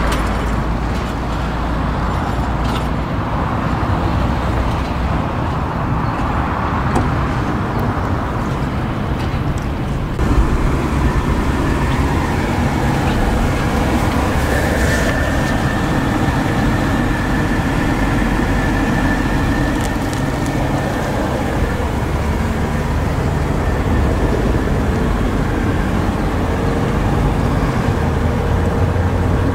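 2005 BMW 745Li's 4.4-litre V8 car on the move: steady engine and road noise, with a sudden rise in level about ten seconds in.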